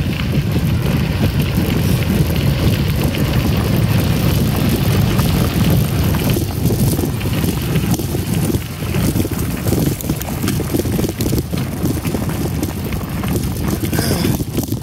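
Wind buffeting the microphone of a moving mountain bike rider, over a steady rumble of tyres rolling on a gravel trail, with many small rattles and clicks from the bike.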